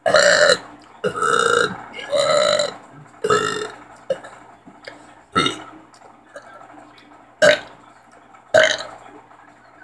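A person burping deliberately, one burp after another, about eight in all: four long, drawn-out burps in the first four seconds, then shorter, sharper ones with longer gaps between them.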